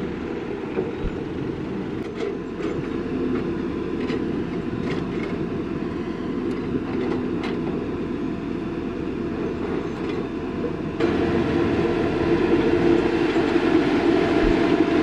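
Heavy construction machinery running steadily, with scattered metallic clanks; the sound jumps abruptly louder about eleven seconds in.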